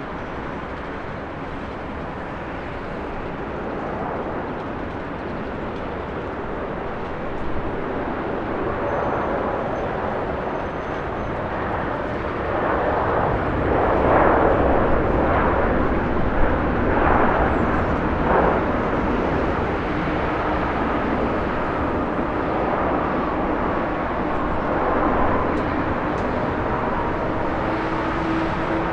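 Airbus A350-900 airliner coming in to land, its Rolls-Royce Trent XWB jet engines heard as a steady rushing noise. The noise swells to its loudest about 14 to 18 seconds in as the aircraft passes, then eases off.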